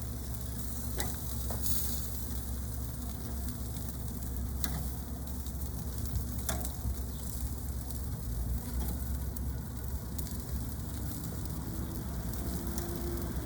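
Seasoned chicken sizzling on a barbecue grill, with a few sharp crackles from the fat.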